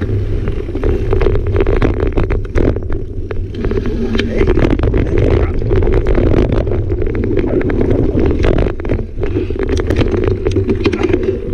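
Mountain bike ridden fast along a dirt singletrack: wind rumble on the bike-mounted microphone, with frequent sharp clicks and rattles from the bike over bumps.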